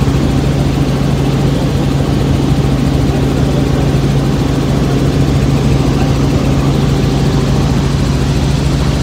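Helicopter engine and rotor running steadily, heard from inside the cabin: a loud, even drone with a strong low hum.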